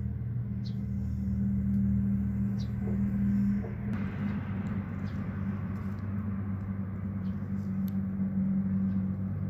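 A motor or engine running steadily with a low hum, its tone shifting slightly about four seconds in.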